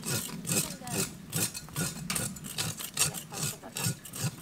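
Rhythmic scraping strokes, about two or three a second, as the crocodile's skin is scraped clean on banana leaves.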